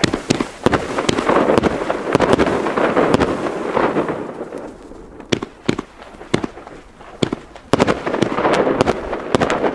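Funke 'Funkenweide' fireworks battery firing: a quick run of launch shots and breaks over a dense crackle. The crackle thins to single pops in the middle, then builds again near the end.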